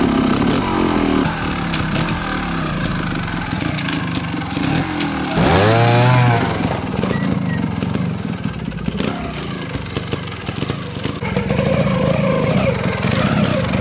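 Beta trials motorcycle engine running and being blipped by the rider on rocky ground, with one sharp rev up and back down about six seconds in. More short revs follow near the end.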